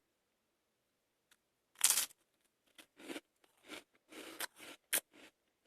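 Biting into a TUC cheese-filled sandwich cracker about two seconds in, then a run of shorter, fainter crunches as it is chewed.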